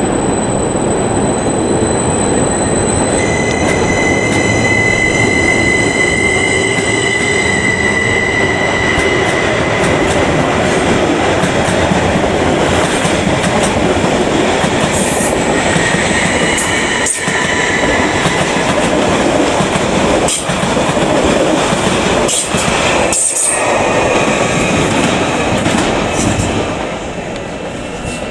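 Greater Anglia Stadler FLIRT multiple unit running through the station, a continuous rumble of wheels on rail with a steady high-pitched whine over it. Sharp clicks from wheels over rail joints come several times in the second half.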